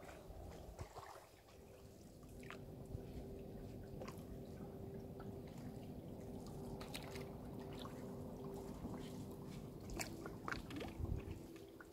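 Faint water sounds around a paddled canoe: drips from the paddle, lapping against the hull and scattered small clicks, over a faint steady hum.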